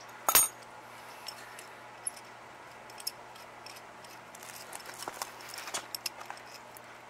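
Adjustable wrenches clinking and tapping against a thin aluminum flat bar as it is clamped and bent by hand. There is one sharp metal clink near the start, then scattered light clicks and taps, busiest about five to six seconds in.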